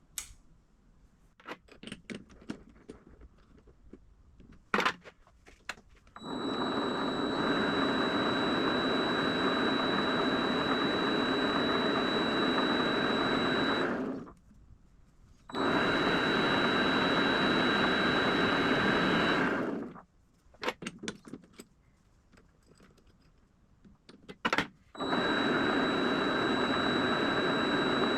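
A benchtop milling machine's motor runs steadily with a constant high whine, switched on and off three times, with clicks and knocks of handling in the quiet gaps between runs.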